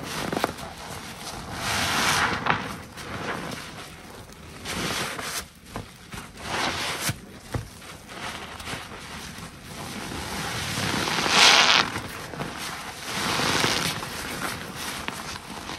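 Foam-soaked car wash waffle sponge being squeezed and wrung by gloved hands in a tub of thick suds: repeated wet squelching with crackling foam. It comes in swells every couple of seconds, the loudest about eleven seconds in.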